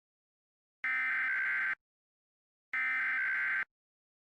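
Two bursts of Emergency Alert System SAME header data tones, each about a second long with about a second between them. This is the digital header that opens an emergency alert message.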